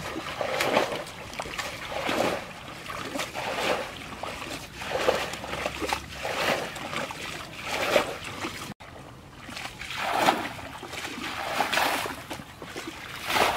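Plastic buckets scooping muddy water and throwing it out, a splash roughly every second and a half, as two people bail a shallow pool dry to catch the fish in it.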